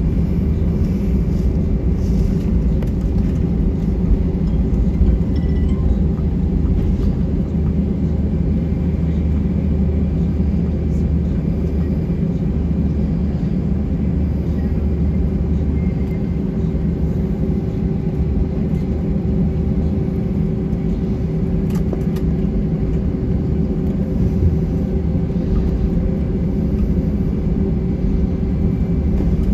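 Steady low rumble in the cabin of an Airbus A320-232 taxiing after landing, its IAE V2500 engines running at taxi power.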